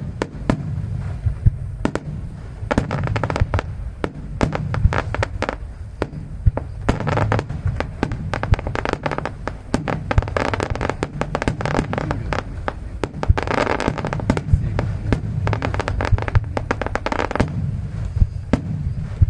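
Fireworks display: aerial shells bursting in quick succession, many bangs a second over a low rumble, with crackling. The bursts come in several heavier waves.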